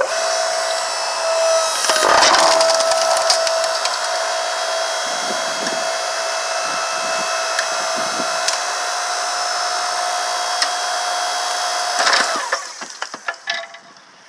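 Southland 6-ton 120-volt electric log splitter running: its motor and hydraulic pump give a steady whine as the ram drives a large log into the wedge. The wood cracks sharply about two seconds in, the loudest moment. The motor stops near the end.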